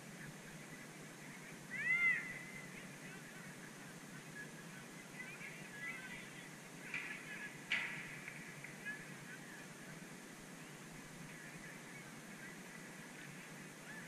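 Geese honking, a few short arched calls, the loudest about two seconds in and a loose cluster in the middle. A single sharp knock sounds just before the eight-second mark.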